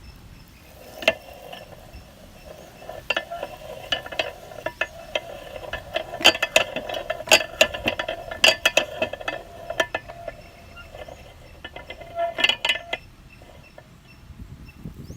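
Meat grinder running with a steady hum while crushing Orbeez water-gel balls, with many sharp clicks and cracks as the balls are squeezed through. The hum starts about a second in and stops near the end, with a last flurry of clicks just before it stops.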